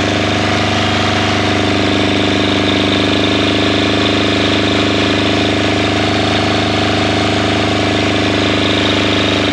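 Kubota two-cylinder diesel running steadily at raised revs, belt-driving a Bosch alternator under charging load, with the whir of the alternator's internal cooling fan, which has quite a wind to it.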